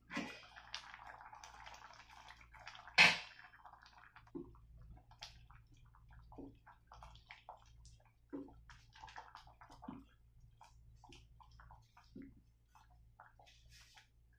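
A stainless steel pot lid is lifted, then a wooden spoon stirs a thick mung bean stew with soft wet liquid sounds. A sharp metal clank about three seconds in is the loudest sound.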